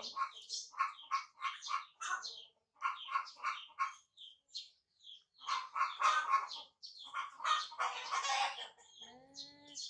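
Baby macaque squealing in quick runs of short, high squeaks, pausing about halfway. A lower, drawn-out pitched call comes near the end.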